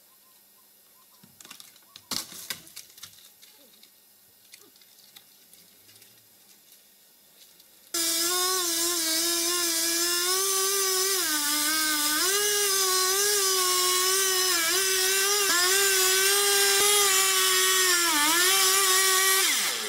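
Petrol chainsaw running at full throttle while cutting into a tree trunk, its pitch dipping briefly several times as the chain bites into the wood. It comes in suddenly about 8 seconds in and cuts off just before the end, after a faint stretch with a few soft clicks.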